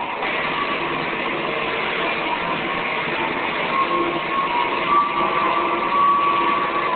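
Live experimental electronic noise performance: a dense, hissing drone with a few held tones drifting through it, the tones growing stronger about halfway through.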